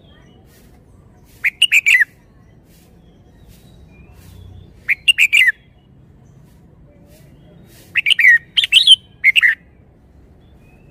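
Red-whiskered bulbul singing: three short phrases of quick, falling whistled notes, about a second and a half in, about five seconds in, and a longer phrase near the end.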